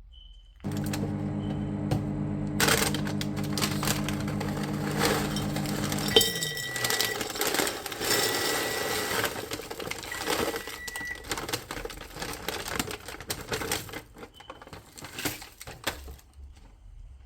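A small electric motor hums steadily and then winds down, followed by irregular clattering and clicks of objects being handled.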